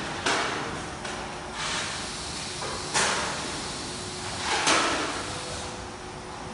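Workshop noise: four sharp knocks or scrapes, roughly a second and a half apart, each trailing off, over a faint steady hum.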